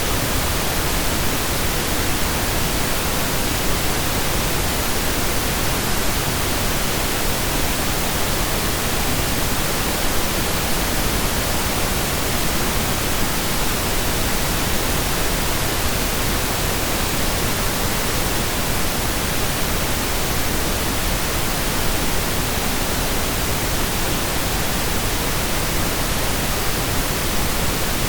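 Pink noise from digital synthesis: a steady, even hiss like rain or a waterfall heard from indoors, unchanging throughout.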